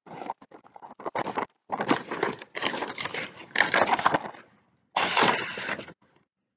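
Sheets of paper rustling and crinkling close to the microphone as bid documents are pulled from their envelope and handled. It comes in a run of uneven bursts, stops for a moment, then a second short burst comes near the end.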